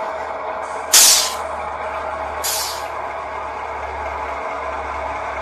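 Diesel locomotive running steadily, with a loud air-brake hiss about a second in and a shorter, weaker one about a second and a half later.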